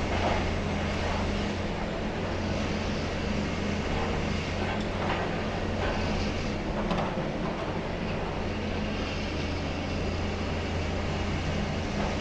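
Distant high-reach demolition excavator running steadily while its attachment cuts into a thick concrete floor, with a few faint knocks about midway.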